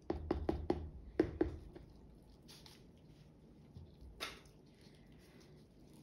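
Small plastic paint cup knocking and scraping against a canvas as the last of the acrylic paint is emptied out, a quick run of about seven clicks in the first two seconds. One more click follows about four seconds in.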